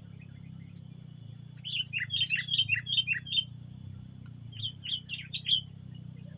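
Sooty-headed bulbul (kutilang) singing: two quick bursts of sharp, down-slurred whistled notes, the first about two seconds in and the second about a second later, over a steady high whine and a low background hum.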